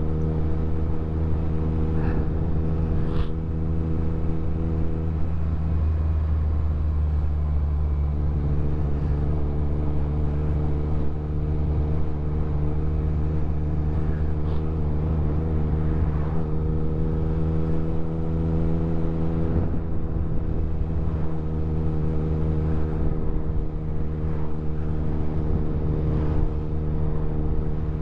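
Motorcycle engine running at a steady cruising speed, its note holding even pitch, with wind and road noise.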